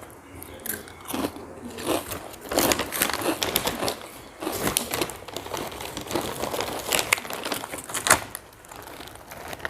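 A plastic potato chip packet crinkling as it is handled, in irregular rustling bursts.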